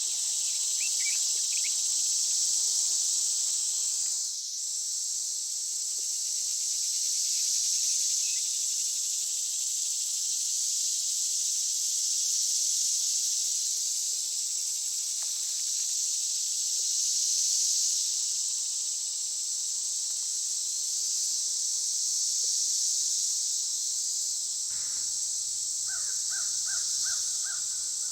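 Steady high-pitched drone of a summer insect chorus in a forest. Near the end a bird gives a quick run of about five short calls, and there are a few faint bird chirps early on.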